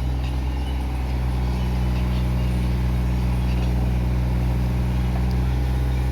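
Excavator's diesel engine running steadily, a low, even engine note.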